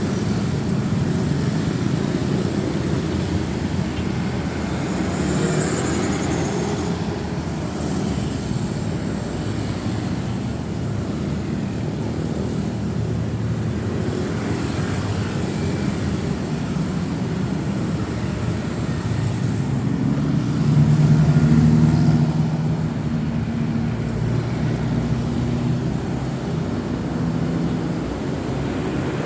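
Busy road traffic, cars and motorcycles passing in a steady stream of engine and tyre noise. About two-thirds of the way through, one vehicle passes closer and louder, its engine note standing out briefly.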